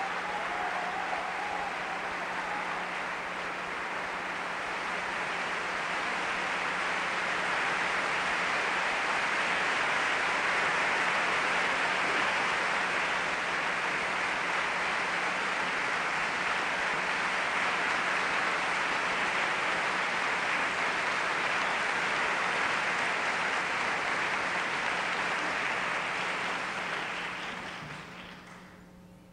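Theatre audience applauding steadily; the applause grows louder a few seconds in and dies away near the end.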